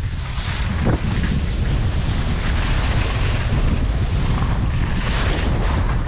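Heavy wind buffeting the microphone of a camera carried on a fast downhill ski run: a steady, loud rumble with a hiss above it.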